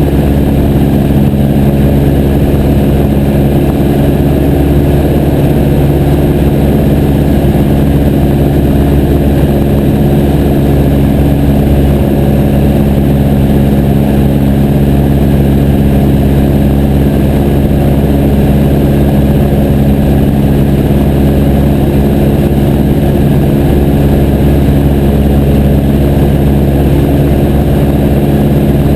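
Piper J3 Cub's engine and propeller running steadily at constant speed, a loud, even drone with no change in pitch.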